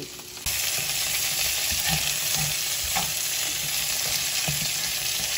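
Potatoes and red bell peppers sizzling in a nonstick frying pan while a slotted spatula stirs them, scraping and tapping the pan now and then. The sizzle jumps louder about half a second in.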